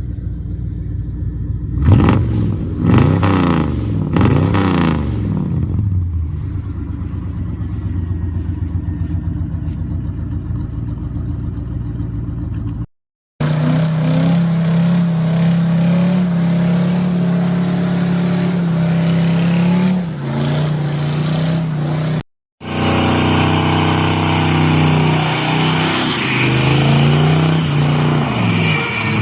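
Car engines revving. First an idling engine is blipped sharply three times in quick succession. After an abrupt cut, an engine runs steadily at high revs under a loud hiss, then drops back near the end.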